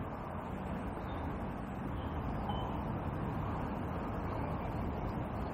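Steady low rushing outdoor background noise with no distinct event, and a faint short high tone about two and a half seconds in.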